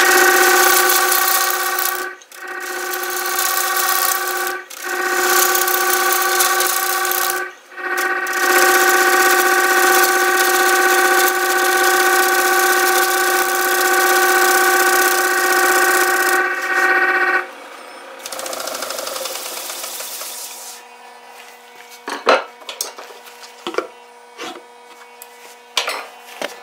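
Turning tool cutting the face of a large basswood platter spinning on a wood lathe: a loud rasping cut carrying a steady pitched tone, with brief pauses about 2, 5 and 7.5 seconds in. The cut stops about 17 seconds in, leaving a quieter hiss from the spinning lathe, then a few light knocks near the end.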